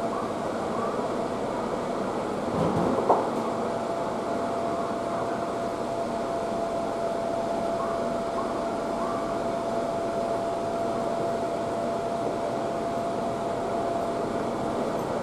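Steady noise inside an electric commuter train car: an even hum with one constant tone held throughout. A brief louder rattle ending in a sharp knock comes about three seconds in.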